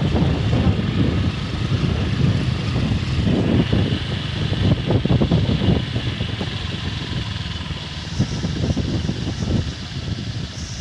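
A vehicle engine running steadily, under a rough, fluctuating low rumble.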